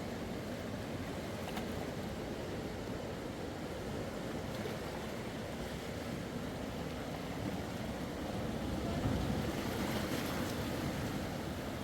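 Steady rushing noise of heavy rain and flowing water, swelling a little about nine seconds in.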